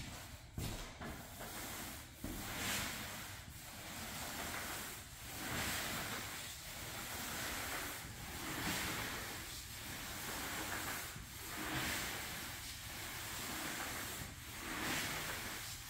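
T-bar applicator swishing over wet polyurethane on a hardwood floor as the first coat is spread. It makes a soft hiss that swells and fades with each stroke, about every second and a half.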